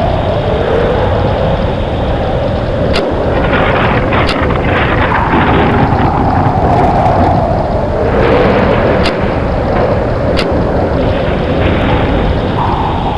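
Storm wind blowing loudly in long gusts whose pitch slowly rises and falls, over a steady rushing noise, with a few brief sharp clicks.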